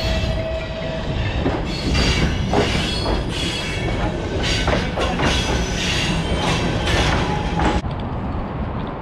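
Footsteps crunching on gravel ballast and railway sleepers, about two steps a second, while walking along the tracks of a freight yard. The sound cuts off suddenly about eight seconds in.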